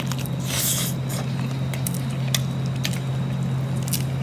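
Hands peeling cooked shrimp: scattered small clicks and squishing of the shells, with a short hiss about half a second in, over a steady low hum.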